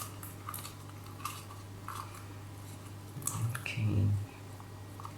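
Small clicks and taps of plastic containers and utensils being handled while slime is added to shaving cream, with a louder muffled bump about four seconds in, over a steady low hum.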